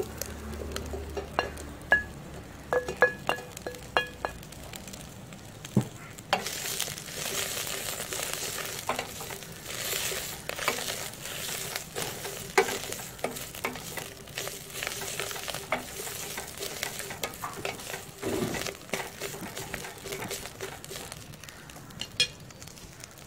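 Kang kung (water spinach) tipped from a ceramic plate into an enamel pot, with a few ringing clinks of dishware. From about six seconds in, the leaves sizzle in the hot oil and spices while a wooden spatula stirs them, knocking and scraping against the pot.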